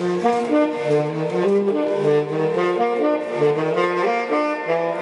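Saxophone playing a melody of short notes that change about two or three times a second.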